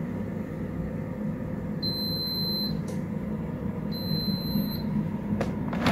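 Kova Gillen digital air fryer beeping twice, long high beeps about two seconds apart, over the steady hum of its fan: the end-of-cycle alarm saying the cooking time is up.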